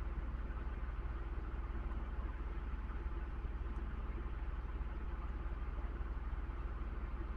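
A steady low hum, like a motor running, unchanging throughout.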